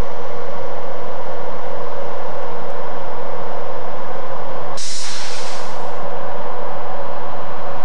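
NZR EF class electric locomotives running past with a steady mechanical noise. About five seconds in, a sudden burst of compressed air hisses out for about a second, then fades.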